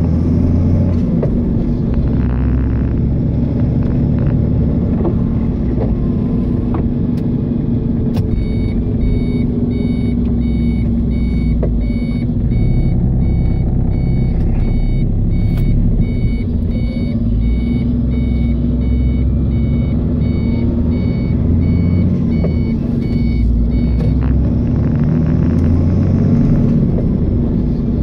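A car driving along a country road: steady engine and road rumble with a constant low hum. From about eight seconds in until about twenty-four seconds, a repeated electronic beep sounds a little more than once a second, like a vehicle warning chime.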